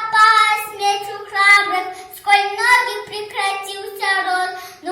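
A young girl singing solo in short phrases of held notes.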